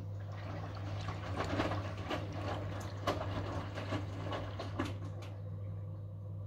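Front-loading washing machine on its final rinse: the drum turns, sloshing water and shirts around for about five seconds with a few soft knocks, over a steady low hum, then the tumbling stops.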